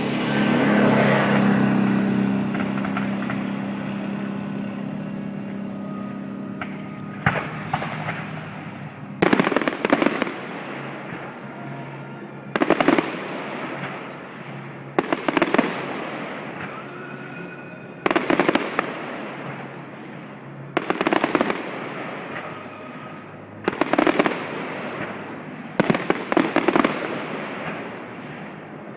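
Fireworks going off: a loud swell of noise with a low hum that fades over the first several seconds, then nine bursts of sharp popping and crackling, one every two to three seconds.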